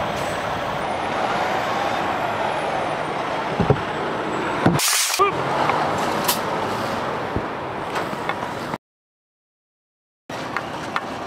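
Truck-yard sound of diesel semi-trucks running, with a short, sharp air-brake hiss about five seconds in. The sound cuts out completely for about a second and a half near the end.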